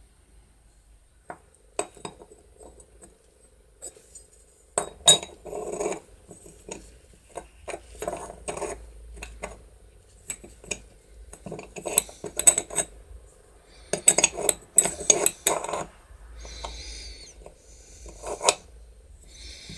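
Small metal parts of a Hueck gear-operated window handle clicking and clinking as they are handled and fitted back into the handle housing during reassembly. The clicks come irregularly, in short clusters, with brief pauses between.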